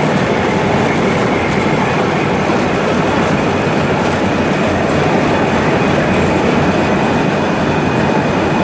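Lathe deep-hole boring a bar of Inconel 625, with flood coolant gushing out of the bore over the spinning workpiece. The cut and the coolant make a loud, steady rushing noise that holds even throughout.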